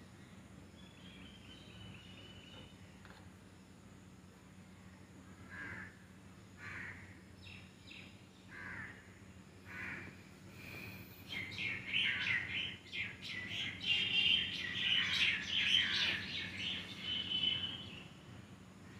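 Birds calling: a few separate calls about a second apart, then a dense run of high chirping for the last several seconds.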